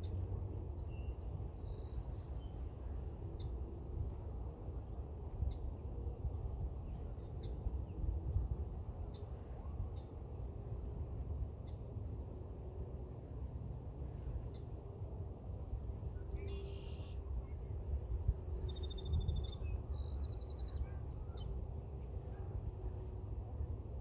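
Natural outdoor ambience: an insect chirping steadily at a high pitch, about two to three chirps a second, over a steady low rumble. A bird gives a short trilling call late on.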